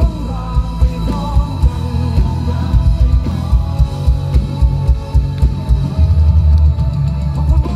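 Live rock band playing loud through an outdoor concert PA: a male singer over drum kit and electric guitars, with heavy bass and drums.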